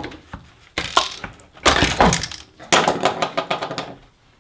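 A screwdriver prying plastic and metal parts loose inside a disassembled coffee machine to free the grinder unit: three bouts of scraping, cracking and rattling, with brief plastic squeaks.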